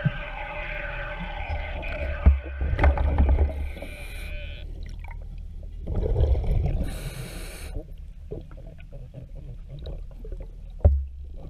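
A diver breathing through a regulator underwater: a long humming inhalation for the first four or five seconds, then a low rumble of exhaled bubbles about six seconds in and a short hiss. Scattered clicks and a few dull knocks come with it.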